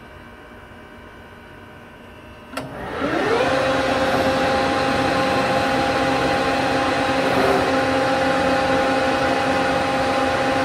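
A Harrison Alpha 400 CNC lathe's 10 hp spindle drive starts about two and a half seconds in with a click. It winds up in pitch over about half a second, then runs steadily with an even whine.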